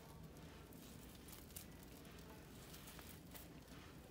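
Near silence, with faint scattered ticks and soft sounds of a knife scoring the surface of a smoked ham.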